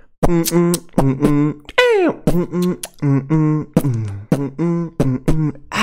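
Video-ad soundtrack: a rhythmic run of short, pitched, vocal-like notes with sharp clicks between them, about three to four a second, with one falling swoop about two seconds in.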